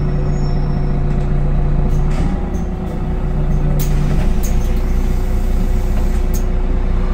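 Solaris Urbino 15 III city bus idling steadily at a stop. A low hum drops out about four seconds in, and a few short, sharp hisses of air sound around the middle.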